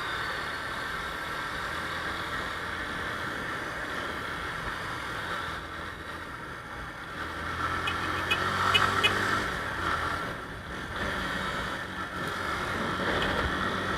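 Motorcycle engine running low in slow traffic, picking up revs about halfway through and then easing off again.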